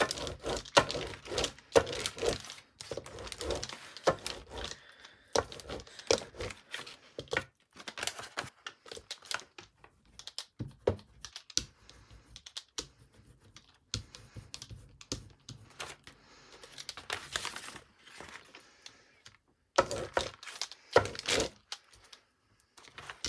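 Crinkled brown packaging paper rustling and crackling as it is handled, pressed and rolled over with a paint brayer, in irregular bursts of crackles and clicks with short pauses between them.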